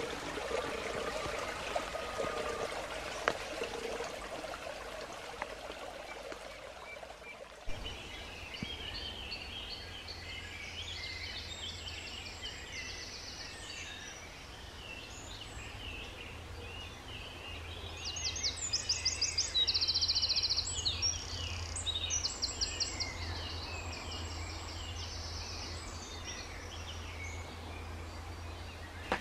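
A small woodland stream running for the first several seconds. Then, after a cut, a bird chorus of many short chirps and whistles, with a loud, fast trilling song repeated several times, loudest about two-thirds of the way in, over a steady low hum.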